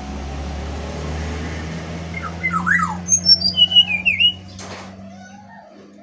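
Brown-chested jungle flycatcher (sikatan rimba dada coklat) singing a quick run of whistled notes that step down in pitch, from about two seconds in, over a low steady hum that fades near the end.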